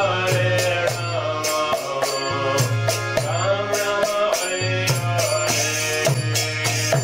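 Devotional kirtan music: voices chanting a mantra melody over a steady drum and hand-cymbal beat, with a low held tone beneath that drops out briefly twice.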